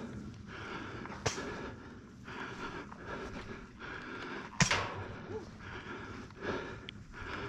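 A person's hard, rhythmic breathing close to a head-mounted microphone while walking uphill, swelling and dipping about every three-quarters of a second, with two sharp clicks, the louder one about four and a half seconds in.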